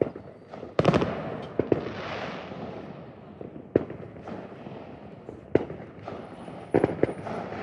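Fireworks display: aerial shells bursting in an irregular series of sharp bangs, each followed by a rolling, rumbling echo, with the loudest bursts about a second in and near the end.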